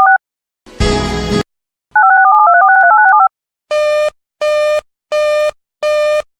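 Electronic emergency-alert tones between two broadcast warnings. A short two-note phrase stepping in pitch is followed about a second in by a harsh buzz, then the same phrase again, then a run of evenly spaced buzzy beeps, about three every two seconds.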